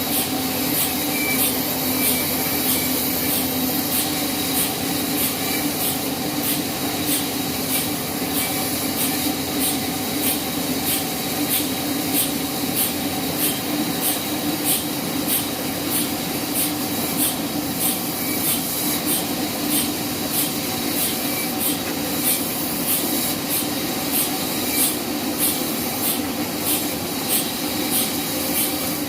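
Sawmill bandsaw running steadily through wood, a continuous rasping cut over a low motor hum, with a regular sharp tick a little under twice a second.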